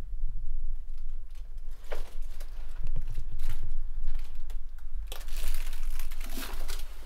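Scattered clicks and crinkling rustles over a steady low rumble, with a denser stretch of rustling about five seconds in: movement and handling noise around the steel shaft ladder of an underground observation post.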